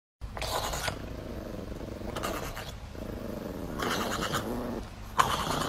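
Chihuahua growling low and continuously, with rasping breaths in between. The growl turns louder suddenly about five seconds in.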